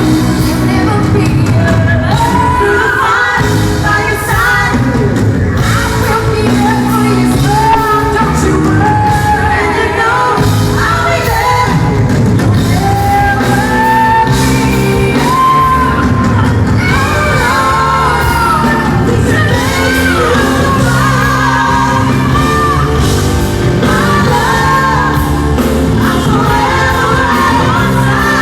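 Live concert recording of a female lead singer performing a pop ballad with a full band, with crowd shouts and cheers mixed in.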